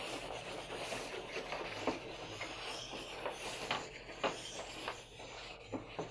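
A blending stick rubbing black chalk pastel into paper in repeated back-and-forth strokes: a dry rubbing hiss with small scattered ticks.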